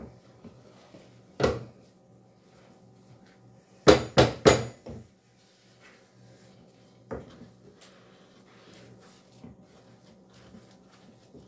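Wooden spoon knocking and scraping against a cooking pot while stirring thick turn cornmeal to mix out the dry lumps. There is one knock about a second in, three quick loud knocks around four seconds, another near seven seconds, and fainter knocks between, over a low steady hum.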